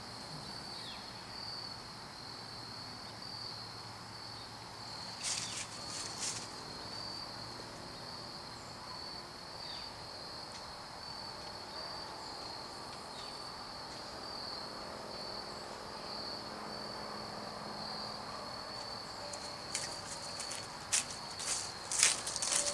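Insects, crickets or katydids, trilling in one steady high-pitched drone, with crunching footsteps in dry leaves and grass near the end.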